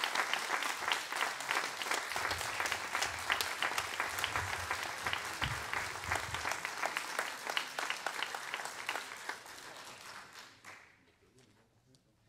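Audience applauding: dense, steady clapping from many hands that thins out and dies away near the end.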